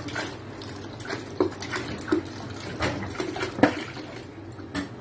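Water poured from a plastic soda bottle into a plastic basin of clams, splashing steadily, with a few sharp clicks and knocks along the way.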